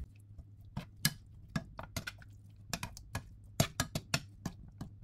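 Metal tongs clicking against a nonstick frying pan as stir-fried food is tossed and mixed: irregular sharp clicks, at times several a second.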